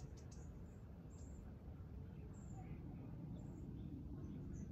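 Faint outdoor backyard ambience: a steady low rumble with scattered brief, faint high bird chirps.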